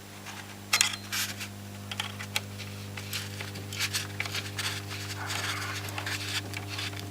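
Antique Kriesler radio humming steadily at a low pitch through its speaker once powered up, with several sharp clicks and knocks over it. The hum is residual mains hum that a new power-supply filter capacitor has reduced but not cured.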